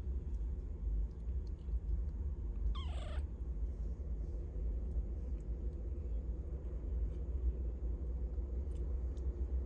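A British Shorthair–Ragdoll cross kitten gives one short mew about three seconds in, over a steady low rumble.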